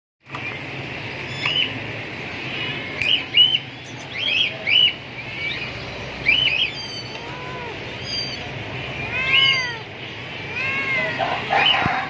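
A cat mewing several times, short rising-and-falling cries mostly in the second half, with short high bird chirps repeating throughout the first half.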